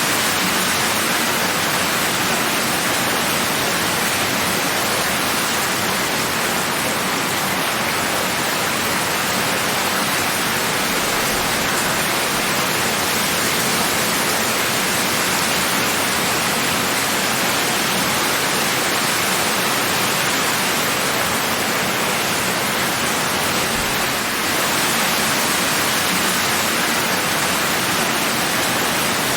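Steady heavy rain falling, a dense even hiss of drops with no single drop standing out.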